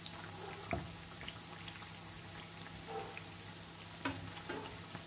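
Rice-flour pitha deep-frying in hot oil in a frying pan, second side down: a steady sizzle with scattered small crackles, and one sharper tap about four seconds in.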